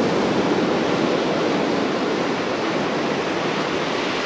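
Ocean surf breaking and washing on the beach: a steady rushing noise with no distinct events.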